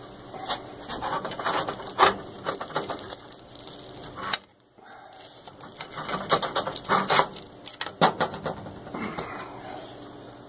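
A kitchen knife sawing through the crust of a whole-wheat loaf: a run of irregular scratchy strokes, breaking off briefly about halfway and then going on.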